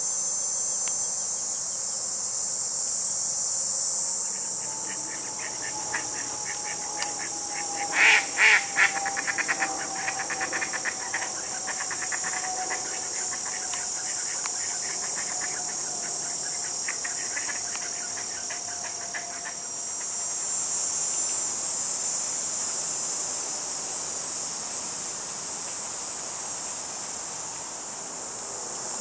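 Steady, high-pitched chorus of summer insects, such as crickets. From about five seconds in until nearly twenty seconds, a run of rapid sharp clicks sounds over it, loudest in three bursts about eight seconds in, with a faint tone sliding slowly downward beneath.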